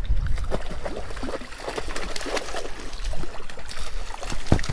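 Stream water running, with irregular splashes and small knocks while a hooked brown trout is fought in the current.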